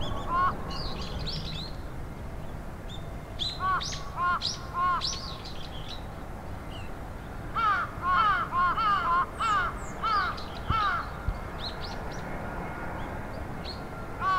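Birds calling: bouts of short, arched calls given in quick series, at the start, around four seconds in, and most densely between about eight and eleven seconds. Thin higher chirps sound among them, over a steady low background noise.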